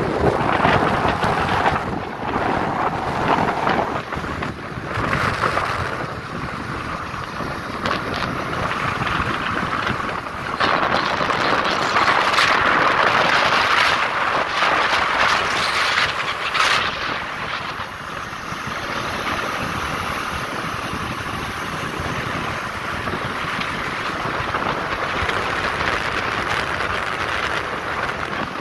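Wind rushing over the microphone of a phone filmed from a moving vehicle, a steady noise that swells for several seconds around the middle and eases again.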